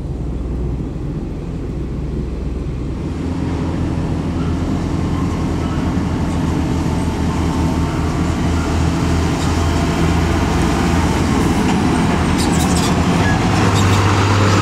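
Diesel engines of two heavy tanker trucks, a UD Quester and a Hino 500, running as they approach, the sound growing steadily louder.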